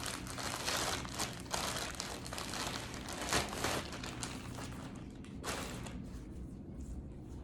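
Packaging rustling and crackling irregularly as a package is handled and opened, thinning out near the end.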